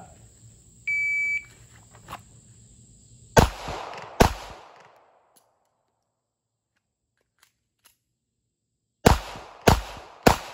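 Shot-timer beep, then two .380 ACP shots from a Ruger LCP Max pocket pistol less than a second apart. After a pause of about four seconds for the slide-lock reload, three more quick shots come near the end.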